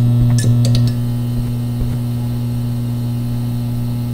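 Steady electrical hum of a neon sign, with a few crackling clicks in the first second.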